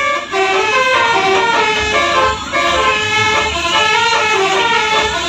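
Bus telolet horn, a multi-trumpet air-horn set of 18 horns, playing a quick tune: several horn notes sounding together and stepping from pitch to pitch, with short breaks.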